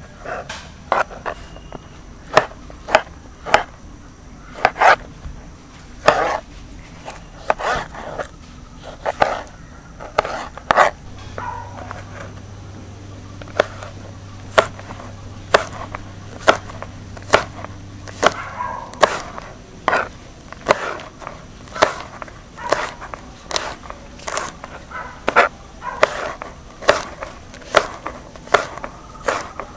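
Knife chopping on a wooden cutting board: sharp, irregular strikes about once or twice a second.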